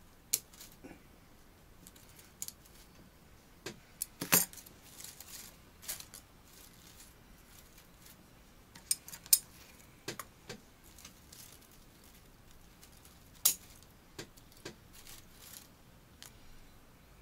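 Bonsai scissors snipping twigs from a Korean hornbeam bonsai: a scattered series of short, sharp snips and clicks at uneven intervals, the loudest about nine seconds in.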